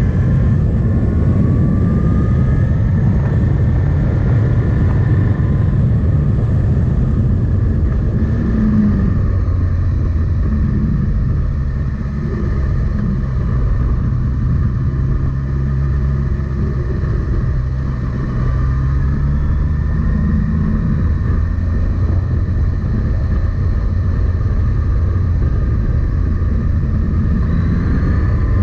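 Suzuki GSX-S 1000's inline-four engine running under way, with a steady rush of road and wind noise. The revs climb near the start and again near the end, with a lower, steadier stretch in between.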